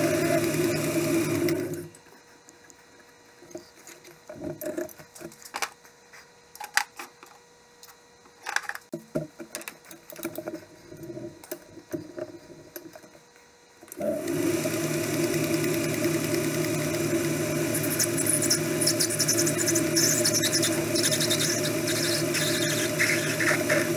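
Metal lathe running steadily, then shut off about two seconds in. For about twelve seconds there are scattered clicks and knocks of metal parts being handled at the chuck and tool post. About fourteen seconds in the lathe starts again and runs steadily, with a high, scratchy squeal over it in the last few seconds.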